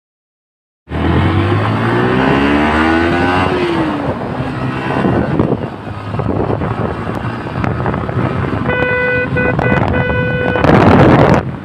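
Sound cuts in abruptly about a second in: a vehicle's engine accelerating on a road, its pitch rising for about two seconds and then dropping, under steady road and wind noise. Near the end a vehicle horn sounds several short times, followed by a brief louder rush of noise.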